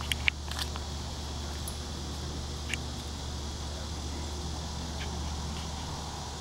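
Steady background chirring of insects such as crickets over a low, even rumble, with a few sharp clicks in the first second and one more a little before the middle.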